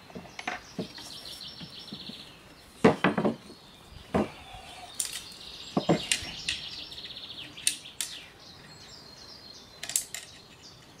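Scattered knocks and taps as a panel, pencil and tape measure are handled on a wooden tabletop during measuring and marking, the loudest knock about three seconds in. A small bird trills twice in the background.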